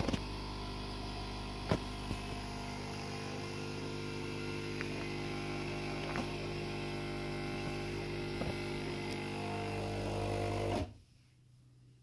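Steady electrical or mechanical hum made of several even tones, with a few faint clicks, cutting off suddenly about eleven seconds in.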